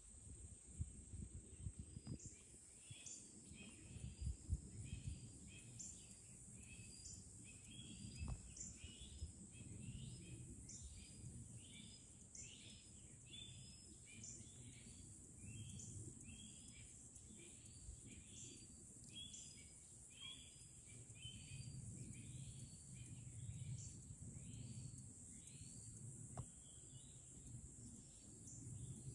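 Faint outdoor animal calls: a steady run of short, high calls repeating about twice a second over a constant high hiss. Low wind rumble and bumps come from the microphone.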